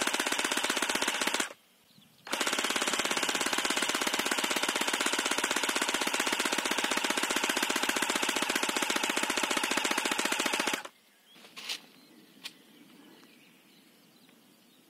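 3D-printed airsoft electric gun (AEG) with an M100 spring and an 11.1 V Li-Po battery firing full-auto: a short burst, a brief pause, then a long burst of about eight seconds that cuts off suddenly. A couple of faint clicks follow.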